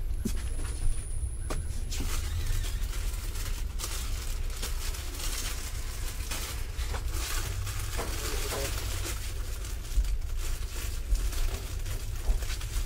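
Packaged goods being handled: scattered crinkling of plastic packets and light clicks over a steady low rumble.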